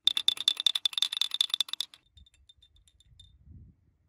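Metal teaspoon stirring tea in a thin tulip-shaped tea glass, clinking fast against the glass about ten times a second with a ringing note for about two seconds, then a few slower, lighter clinks.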